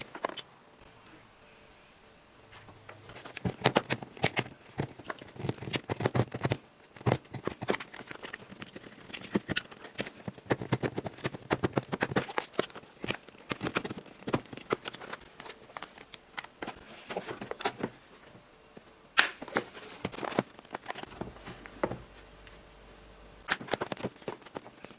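Rapid clicks, taps and scratches of a toy gemstone excavation kit being handled and worked, coming in bursts with a few short pauses.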